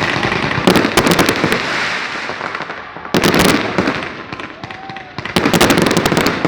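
Firecrackers going off in three rapid volleys of pops, about a second in, about three seconds in and again near the end.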